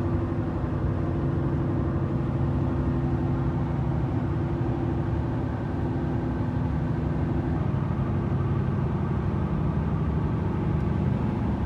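A vehicle engine running steadily, its low hum and steady tones shifting slightly about two thirds of the way through.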